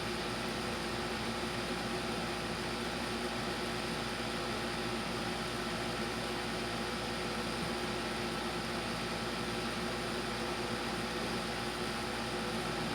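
Steady machine hum and hiss from a running household appliance, with several fixed tones and no change in level.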